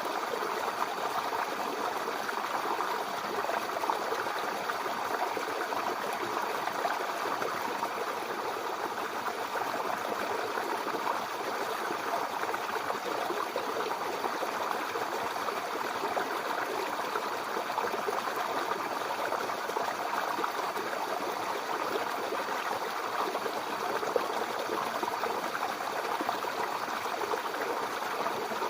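Mountain river rushing and gurgling over rocks, a steady even wash of water.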